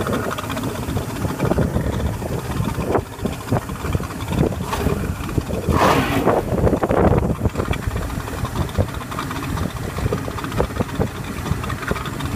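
Mercury-built Mariner outboard motor running as the boat moves across the water, with wind buffeting the microphone. A louder rush of noise comes about six seconds in.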